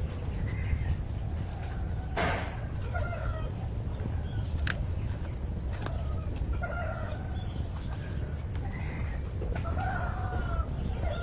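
Chickens clucking: short calls every second or so over a steady low rumble, with a few sharp clicks.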